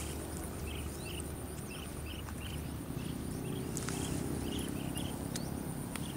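Field ambience of calling insects: a steady high trill runs throughout, with short repeated calls about twice a second and a few faint clicks over a low rumble.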